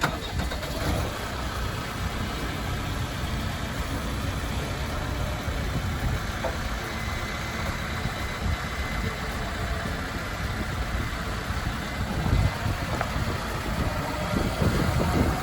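Case 580 Super N backhoe's diesel engine running steadily, a little louder near the end.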